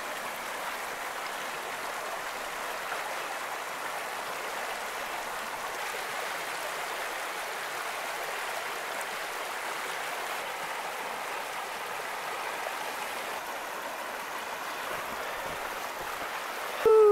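Steady rush of a partly frozen river's current flowing over rocks between shelves of snow-covered ice.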